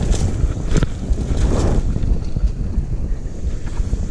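Wind buffeting a mountain biker's chest-mounted camera microphone as a loud, steady rumble, with a few sharp knocks and rattles from the bike going over rough ground.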